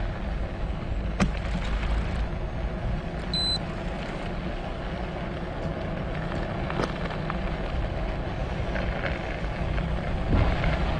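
Riding noise from a fat-tyre electric recumbent trike on snow and ice: a steady low rumble of wind on the microphone and tyres. There is a sharp click about a second in and a short high beep about three and a half seconds in.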